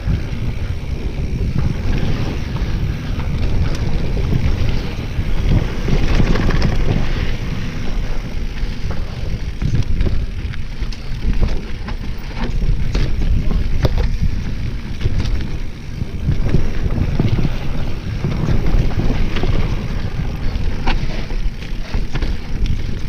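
Wind buffeting the microphone of a helmet-mounted camera as a mountain bike rides a dirt trail, with the rumble of the tyres and scattered clicks and rattles from the bike over bumps.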